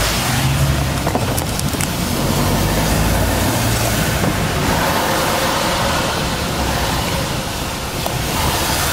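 A lorry's diesel engine running, heard from inside the cab, with a steady hiss of tyres on a wet road.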